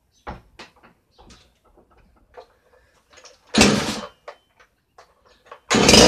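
Chinese two-stroke chainsaw's recoil starter pulled twice, about two seconds apart, each pull a short rasping whirr of the engine turning over without catching. Small knocks and clicks of the saw being handled come before the pulls.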